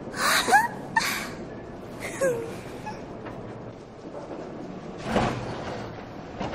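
Gondola lift machinery running, with a cabin rattling out of the station on its cable; the clatter gets louder about five seconds in. A few short voice sounds come in the first couple of seconds.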